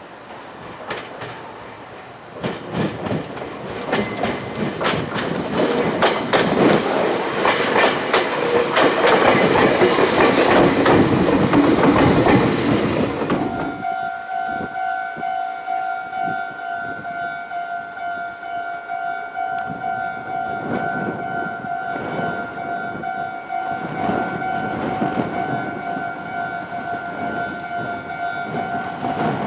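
Meitetsu train running, a loud rumble with wheels clattering over rail joints, building up over the first half and then cutting off abruptly. A Japanese level-crossing alarm then takes over, ringing steadily over the fainter sound of the train.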